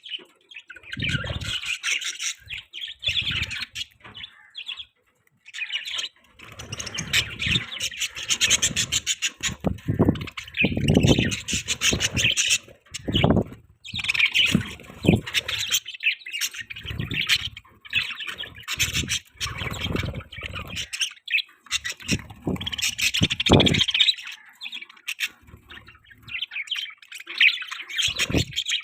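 Budgerigars chirping and chattering non-stop in a fast twittering warble, with repeated dull low knocks or rustles mixed in.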